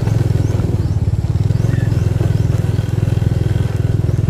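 Motorcycle engine running steadily at low speed, its fast, even exhaust pulses unbroken as the bike rolls along a gravel road.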